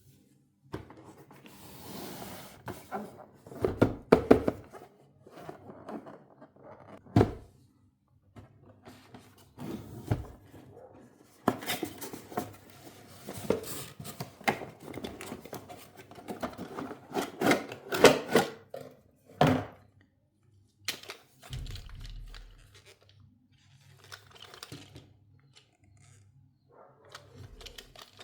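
Toy packaging being handled and opened by hand: irregular knocks, rustling and tearing of cardboard and plastic, with sharper knocks about 4, 7 and 18 seconds in.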